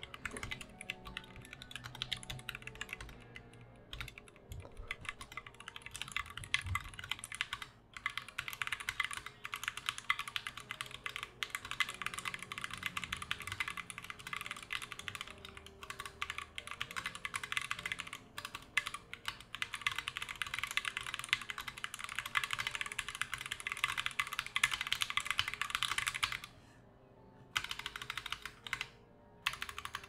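Fast typing on a custom-built 60% mechanical keyboard: a dense, continuous run of keystrokes that pauses briefly twice near the end.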